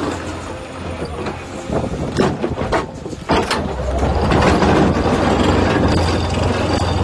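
50-ton excavator's diesel engine working under load, with sharp knocks and cracks of rock around the middle. From about four seconds in it runs louder and steadier.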